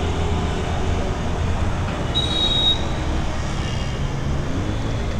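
Steady low rumble of road traffic, with a brief high-pitched squeal about two seconds in.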